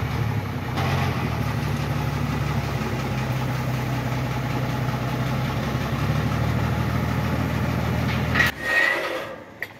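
Truck engine running steadily while the truck's crane lowers steel lattice tower sections off its bed. The hum cuts off suddenly near the end, with a short sharp sound.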